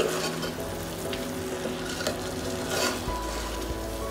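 Spoon gently stirring soaked basmati rice through fried sprouts and spices in a hot pot, with a soft sizzle and light ticks of the spoon.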